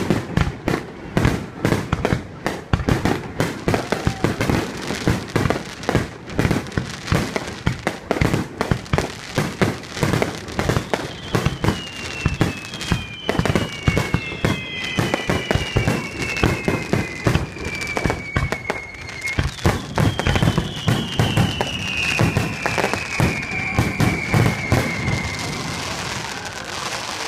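A fireworks finale barrage heard from close range: a rapid, unbroken string of bangs, several a second. About halfway through, and again later, long whistles sweep downward in pitch over the bangs.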